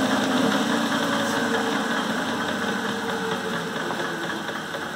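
Clausing 5914 metal lathe's motor and variable-speed belt drive running, the sound fading gradually as the machine is switched off and winds down.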